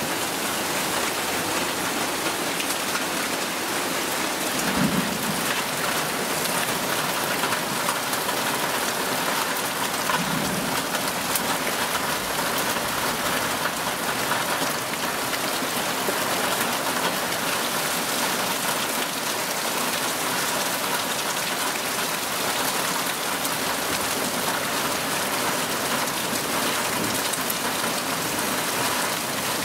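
Heavy rain pouring down steadily in a thunderstorm, a dense, even hiss of drops on leaves, roof and paving.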